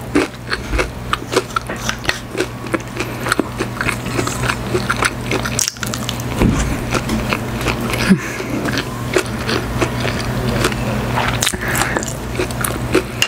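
Close-miked chewing of Korean fried chicken and kimchi fried rice: a dense, continuous run of small wet clicks, crunches and mouth smacks.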